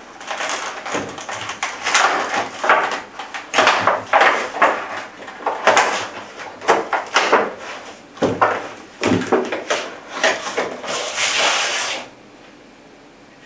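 Clear plastic clamshell packaging crackling and crinkling as it is pried open and handled, an irregular run of sharp crackles and rustles that stops suddenly near the end.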